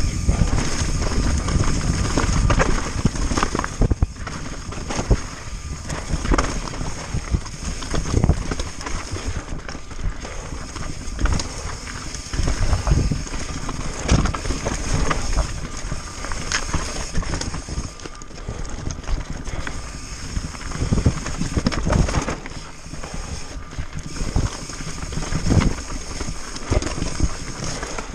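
Pivot Firebird 29 full-suspension mountain bike descending a rocky trail: tyres crunching over rock and gravel, with frequent irregular knocks and rattles from the wheels and frame on rock hits. A steady high whine runs over it.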